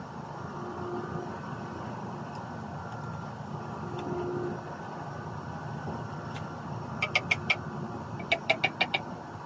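Steady background hum of distant traffic. Near the end come two quick runs of sharp, high clicks, about six a second: four clicks, then a pause, then six.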